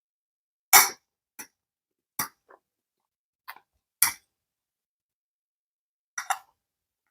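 Chewing food: several short, sharp mouth sounds with silent gaps between them, the loudest about a second in.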